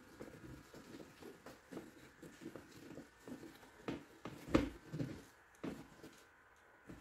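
Moulded plastic mud flap being fitted against the wheel arch liner and a screw driven in by hand with a screwdriver: scattered soft taps, clicks and rubbing of plastic, the loudest knock about four and a half seconds in.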